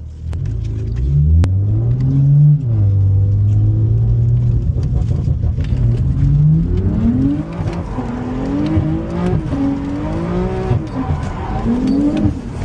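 Car engine revving hard, its pitch climbing and falling again and again over a steady low rumble.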